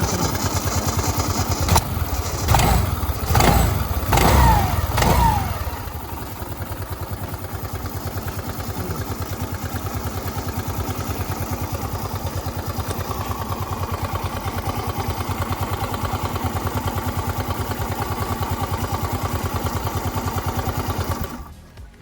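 Suzuki Access 125's single-cylinder four-stroke scooter engine running with its CVT side cover off, after a new movable drive and belt were fitted: revved up and down a few times early on, then idling steadily until it cuts off just before the end. It sounds loud because the side cover is not yet fitted.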